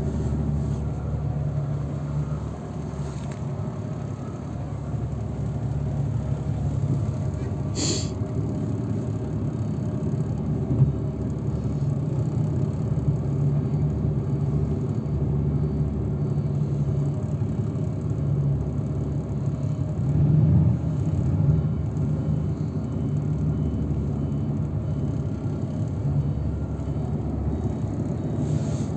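Steady low rumble of a moving shuttle vehicle's engine and road noise, with one sharp click about eight seconds in and a brief swell in loudness around twenty seconds.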